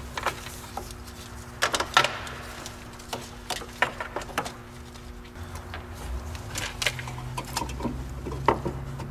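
Scattered light clicks, taps and rustles of gloved hands handling an HID headlight wiring harness and ground wire among the hoses and parts of an engine bay, over a steady low hum, with a deeper rumble coming in about halfway through.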